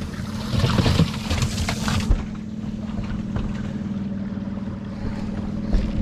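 Steady low hum of a small motor aboard a small fishing boat, with knocks and rustling over it during the first two seconds.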